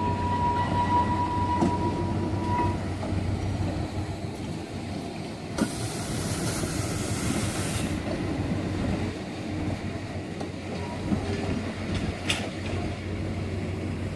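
Rhaetian Railway train moving at low speed through a station yard, with steady low running noise and wheel rumble. A high steady whine is heard for the first two or three seconds, and a burst of compressed-air hiss lasts about two seconds starting near the sixth second. A few sharp clanks are also heard.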